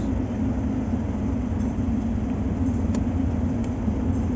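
Mitsubishi Montero Sport engine idling steadily, with a couple of faint clicks in the second half.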